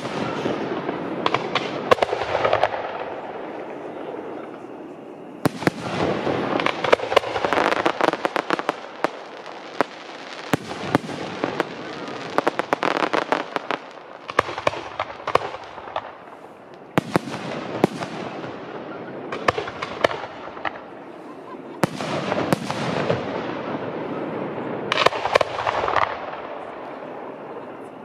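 Fireworks display: clusters of sharp bangs and dense crackling, volley after volley with short lulls between.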